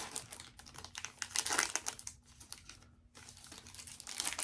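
Trading cards being handled and sorted by hand: a quick, irregular run of light clicks and slides as stiff Topps Chrome cards are flipped through and set down on a stack.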